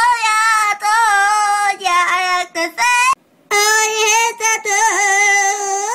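A child's high voice singing long, held notes with a wavering vibrato, with a short break about three seconds in.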